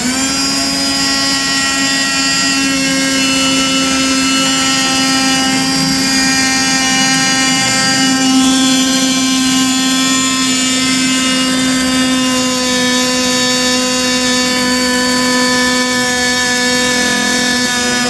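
Battery-powered toy washing machine switched on, its small motor running with a steady buzzing hum that starts suddenly and holds the same pitch throughout.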